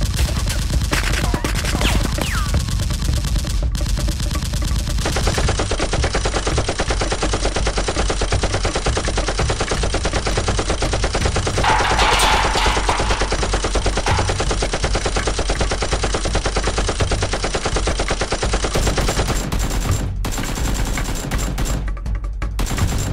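Rapid machine-gun-style gunfire sound effects, with shots following in quick, continuous volleys, dubbed over Nerf blasters firing.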